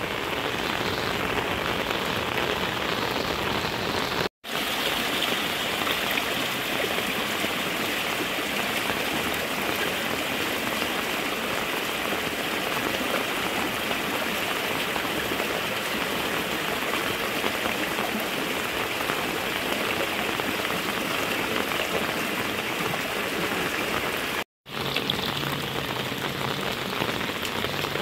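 Heavy rain falling steadily: a dense, even hiss with no let-up, cut by two momentary silent gaps about four and twenty-four seconds in.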